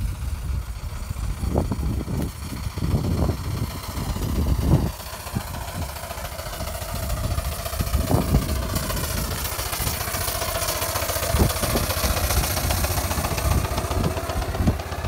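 Miniature steam traction engine running as it drives slowly along a lane and passes close by. There is a steady low rumble with scattered knocks, and the sound is fullest after the midpoint as the engine goes past.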